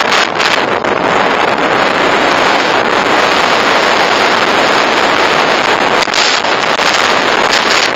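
Steady, loud wind rush buffeting the microphone of a motorcycle-mounted camera while riding, drowning out the engine and tyres.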